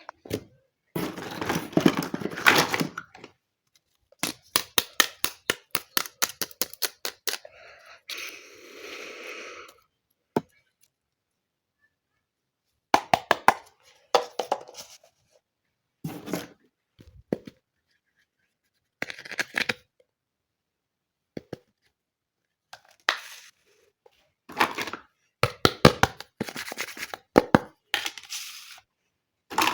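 Small plastic toy kitchen pieces and their packaging being handled: a fast run of small clicks, short stretches of rustling and tearing, and scattered clusters of clicks and taps separated by pauses of silence.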